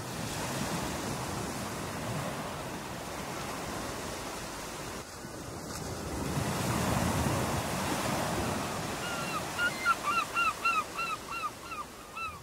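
Ocean surf washing in, swelling and easing. Near the end a bird calls in a quick run of short, falling notes, about three or four a second.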